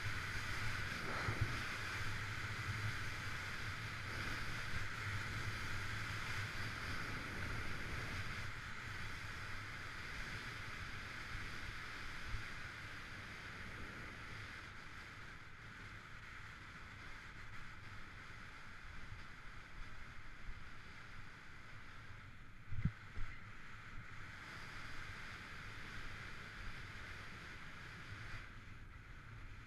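Skis sliding and scraping over groomed, hard-packed snow with wind rushing over the camera microphone, gradually getting quieter. Two sharp knocks about three-quarters of the way through.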